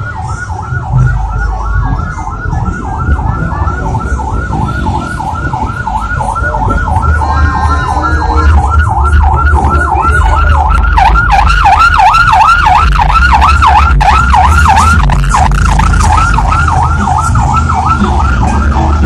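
Electronic vehicle siren yelping, sweeping up and down about three times a second, growing louder as it nears, over a low rumble of engines.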